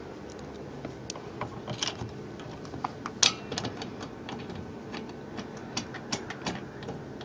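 Irregular small clicks and taps of bolt hardware as a flange bolt and fender washer are started by hand through the windshield's side bracket, with one louder click about three seconds in.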